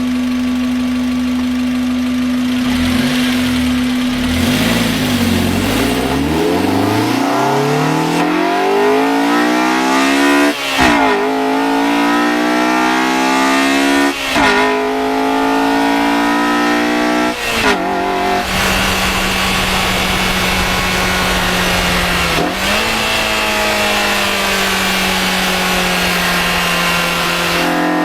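Honda Accord Euro R's four-cylinder VTEC engine accelerating through the gears. Its pitch climbs, with three quick upshifts each marked by a sudden drop in pitch, then it settles to a steady cruise.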